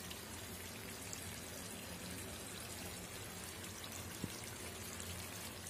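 Onion-rich chicken curry gravy simmering in a pan on a low flame, a faint, steady bubbling and spitting, with one small click about four seconds in.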